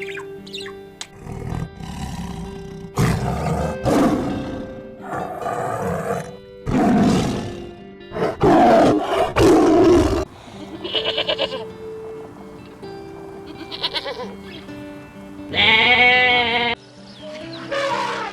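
A series of animal calls over background music: several loud, rough roar-like calls in the first half, then shorter pitched calls, the loudest a little after the middle of the second half.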